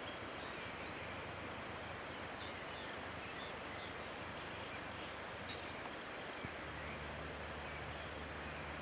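Quiet outdoor ambience: a steady hiss with a few faint, short high chirps in the first half, and a low steady hum that comes in about two-thirds of the way through.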